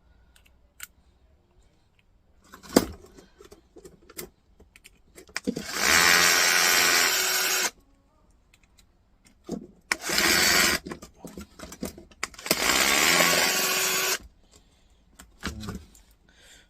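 Electric drill driving a screwdriver bit in three short runs, with small clicks and knocks of the bit and parts between them. The small screw is stubborn and does not come out.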